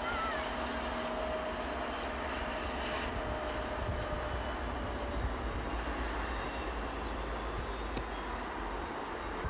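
Diesel-electric locomotives running in a locomotive servicing yard: a steady low rumble with a faint hum that fades out about five seconds in.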